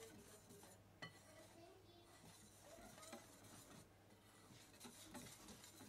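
Faint clinking and scraping of a wire whisk stirring dry flour-and-cornstarch breading in a bowl, with a sharper tap about a second in.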